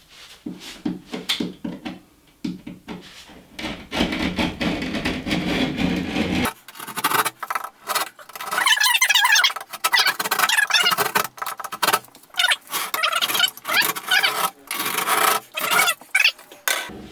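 Utility knife scoring drywall along a traced square, a run of short scratchy scraping strokes through the paper face. About six seconds in the strokes turn thinner and higher.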